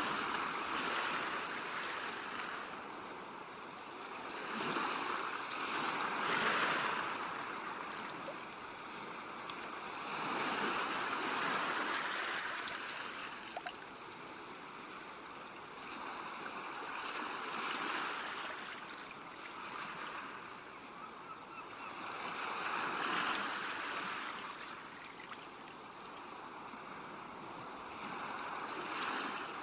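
Ocean waves breaking and washing back, each surge swelling up and fading away, about one every five to six seconds.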